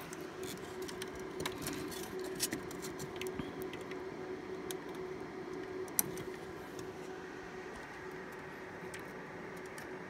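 Small clicks and rattles of a braided SAS cable and its plastic connector being handled and routed among the metal and plastic parts inside a server chassis, busiest in the first half with one sharper click about six seconds in. A steady hum runs underneath.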